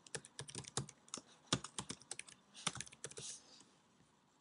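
Typing on a computer keyboard: a quick, uneven run of key clicks that stops about three and a half seconds in.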